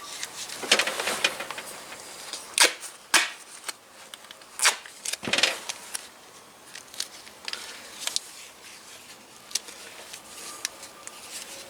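Tape being pulled off its roll in a few short rips and wrapped around wiring, with scattered sharp clicks and rubbing from handling, most of it in the first half.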